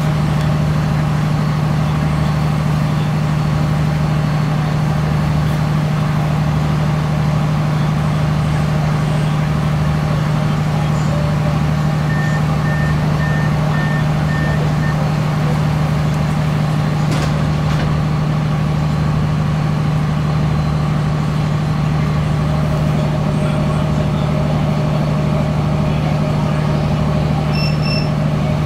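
Interior of a CAF Class 3000 diesel multiple unit standing at a platform: a steady, loud engine idle hum with air-conditioning noise over it. A short run of faint beeps sounds about halfway through, and two brief high beeps come near the end.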